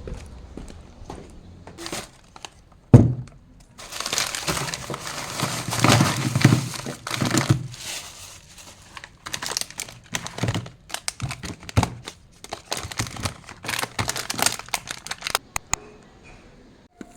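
Plastic snack packets crinkling and rustling as they are handled, with a single thump about three seconds in and scattered crackles and taps later on.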